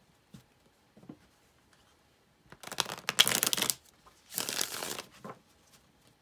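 A tarot deck being shuffled by hand: two bouts of rapid card-on-card flutter, about a second each, the first about two and a half seconds in and the second just after, with a few soft card taps before them.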